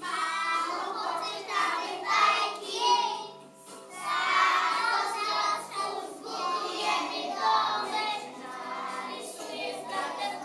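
A group of young children singing together, with musical accompaniment underneath.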